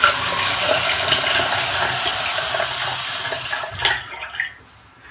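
Water running from a bathroom tap into the sink for about four seconds, then stopping, followed by a few light knocks.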